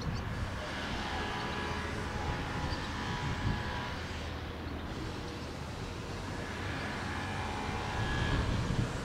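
Airbus A321 airliner in flight, its jet engines giving a steady distant roar with a faint high whine that fades in and out.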